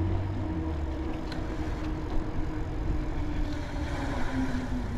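A motor vehicle's engine humming steadily, its pitch dropping slightly near the end, over a constant low rumble.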